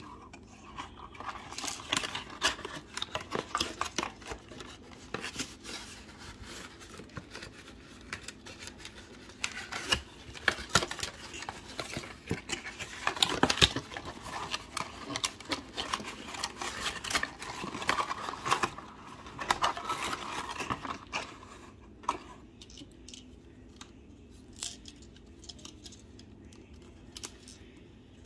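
Hands working a plastic toy out of its cardboard box insert: rustling, scraping and many small clicks and knocks of cardboard and plastic. The handling is busy for about the first twenty seconds, then thins to a few small clicks as the tie string is pulled off.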